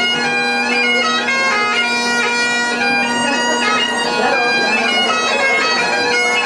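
Music: a reedy wind melody of quickly changing notes played over a steady held drone.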